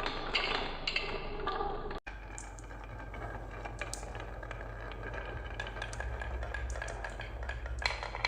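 Glass marbles rolling and clattering down a wooden HABA marble run: a dense rattle of clicks for about two seconds, then after a cut, scattered clinks and knocks over a low steady hum.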